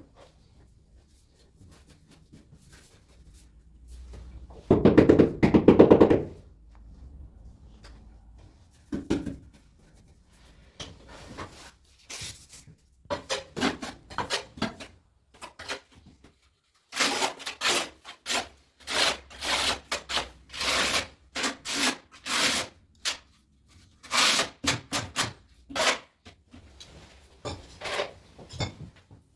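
Tile-setting work: a loud rattling buzz for about a second and a half, about five seconds in, then many short scraping and rubbing strokes, coming thickly through the second half.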